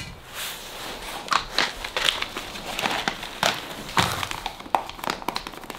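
Freeze-dried meal pouch crinkling and rustling as it is handled, in many short, irregular crackles.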